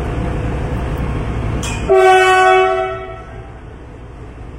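A steady low rumble, then about two seconds in a single train horn blast. The blast holds one steady note for about a second and fades away.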